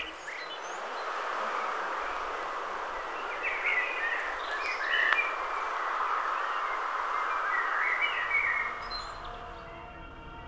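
Birds chirping over a steady hiss of outdoor ambience, with many short chirps throughout. It fades out near the end as a few steady music tones come in.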